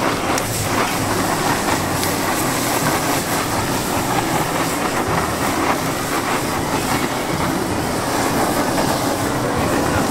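Handheld gas blowtorch running with a steady rushing hiss as it flame-sears sauced squid on a hot griddle. Frying sizzles and a few light scrapes of a metal spatula run underneath.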